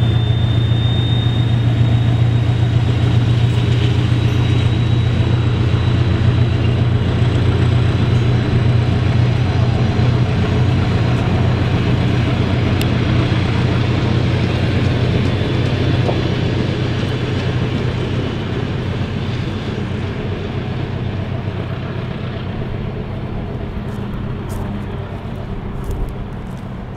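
SU42 diesel-electric locomotive running with a steady low drone as it hauls passenger coaches past and away, with the noise of the coaches rolling on the rails. The sound fades gradually over the second half as the train recedes.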